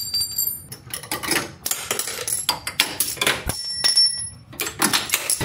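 Metal hand tools clicking and clattering, with ringing metallic clangs near the start and again about three and a half seconds in: a steel socket extension and socket dropped onto a concrete floor.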